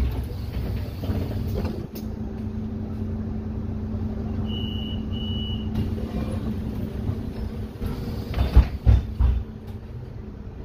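Solaris Urbino 12 IV city bus heard from inside, its engine humming steadily. About halfway through come two short high beeps, and near the end a few heavy thumps.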